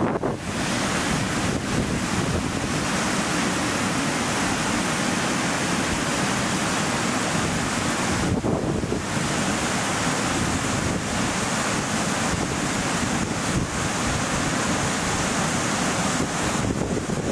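Steady wind rushing across the microphone, a continuous hiss with a brief dip about halfway through.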